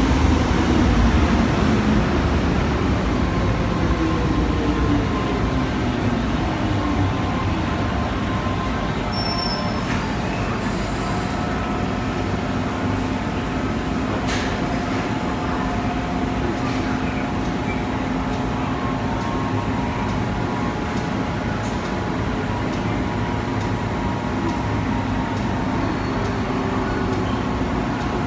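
MTR M-Train electric multiple unit pulling into an underground station, its motor whine falling in pitch as it slows to a stop. The stopped train then gives off a steady hum of several tones.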